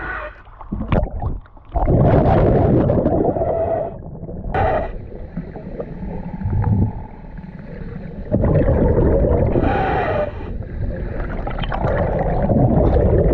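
Scuba diver breathing underwater through a regulator: long rumbling gushes of exhaled bubbles every few seconds, with quieter stretches between breaths.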